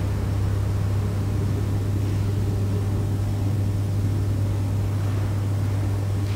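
Steady low hum with a constant hiss over it; nothing else happens.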